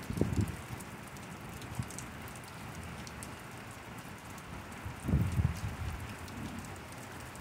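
Steady rain falling in a thunderstorm, an even hiss throughout. Two short low rumbles stand out above it, one just after the start and a louder one about five seconds in.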